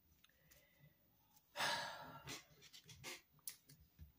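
Soft rustling and light clicks of a deck of oracle cards being handled as a card is drawn, with one louder, longer rush of noise about one and a half seconds in.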